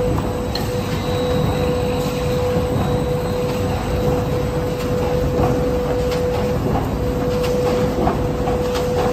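Automatic flexo printer-slotter and rotary die-cutter carton line running in production: a steady, even machine rumble with a constant mid-pitched hum, and scattered light clicks and clacks as corrugated boards are carried along the belt conveyor.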